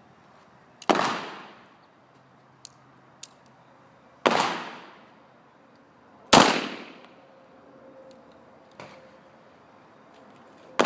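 Pistol shots: three loud cracks a few seconds apart and a fourth right at the end, each with a ringing tail that dies away over about a second. Fainter single pops between them.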